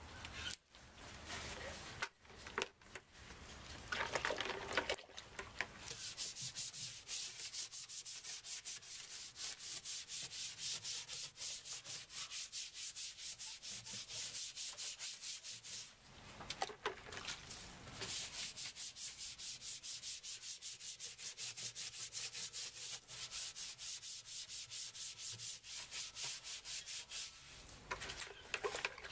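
Fast, even scraping strokes of a hand tool cleaning a chicken coop surface, about four or five a second, in two long runs with a short pause between them.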